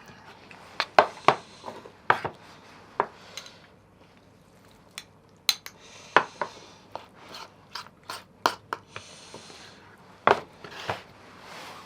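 Dishes and cutlery clinking and knocking during meal preparation: an irregular run of sharp clicks and knocks, the loudest about a second in and again around ten seconds, with soft rustling between them.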